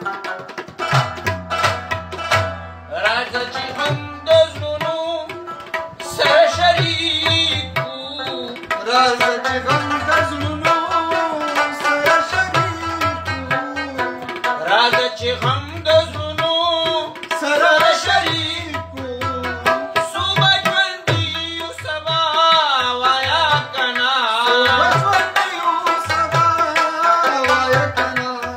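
Rabab and tabla playing a Pashto ghazal. The tabla keeps a steady rhythm of deep bass strokes under the rabab's ornamented, wavering melody.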